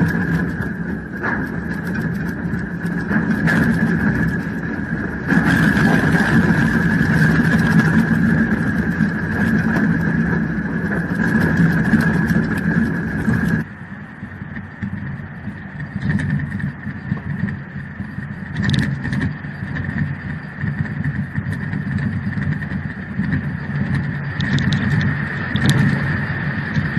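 Low rumbling with scattered rattling and clicking from a building shaking in an earthquake, over a steady high tone. About halfway through, the sound abruptly turns quieter and duller.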